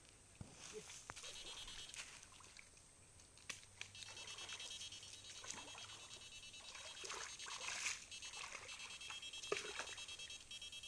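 Water splashing and sloshing as people wade through a shallow stream, with scattered small clicks and knocks.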